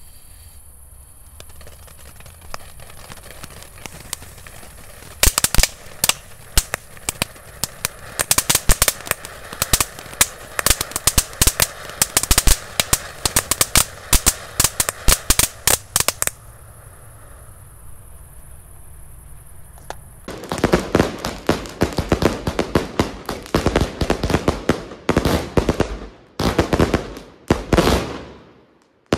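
Small category 1 consumer fireworks going off in rapid strings of sharp pops and cracks: a long run from about five seconds in, a short pause, then a denser crackling run until near the end.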